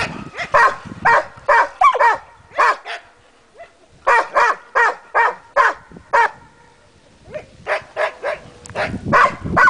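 Balkan hound barking in quick runs of about two barks a second, breaking off briefly twice.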